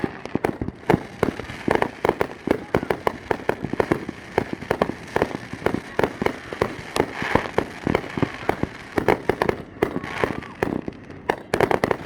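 Fireworks going off in rapid succession: a continuous string of sharp bangs and crackling reports several a second, densest about eleven seconds in.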